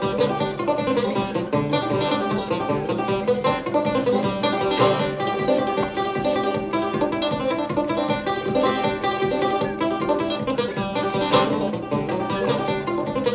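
Background music: an upbeat bluegrass tune led by banjo with guitar, a steady stream of quick plucked notes.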